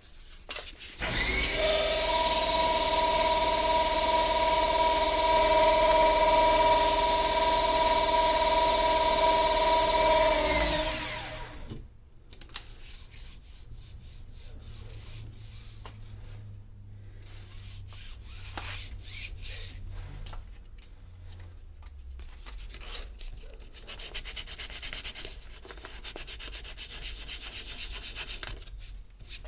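An electric power tool's motor runs at a steady pitch for about ten seconds, then spins down with falling pitch. Lighter, irregular rubbing and scraping of wood follows.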